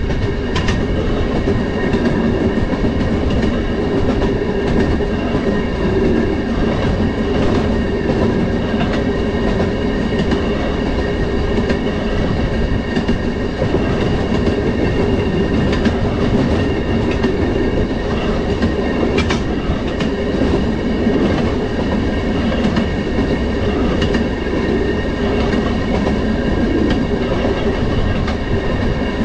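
Railroad motorcar (track speeder) running along the rails: steady engine and wheel noise with a steady high whine over it. Occasional clicks come from the wheels crossing rail joints.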